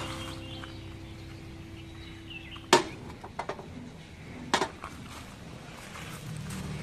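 Small metal paint tins knocking against the bare steel floor of an amplifier chassis as they are set down. A sharp knock about three seconds in and a few lighter taps after it, then a stronger double knock about a second and a half later.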